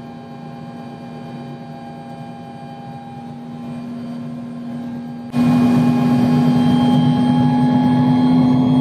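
Helicopter turbine engine, freshly started and running on the ground before takeoff, with a steady hum. About five seconds in it turns abruptly much louder and noisier.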